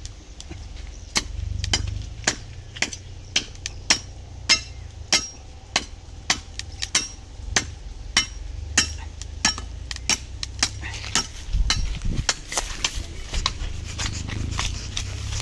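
Machete blade chopping into the trunk of a coconut palm, sharp strikes at an even pace of about one every 0.6 seconds. In the last few seconds the strikes give way to lighter, faster crunching of footsteps through dry grass.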